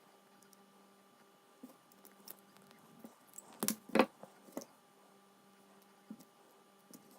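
Small metal clicks and knocks from a padlock and tools being handled during disassembly. Scattered light ticks, with a louder cluster of sharp knocks about halfway through.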